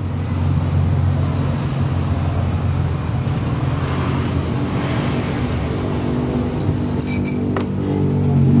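A motor vehicle's engine running close by, a steady low hum that grows louder with a rising pitch near the end.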